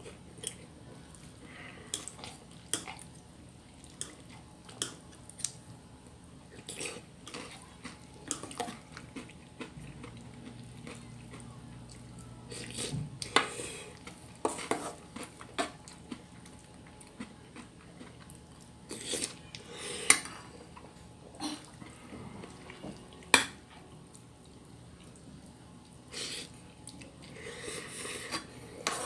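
Cutlery clinking and tapping against dishes while eating, in scattered irregular clicks, with a few sharper clinks about 13, 20 and 23 seconds in.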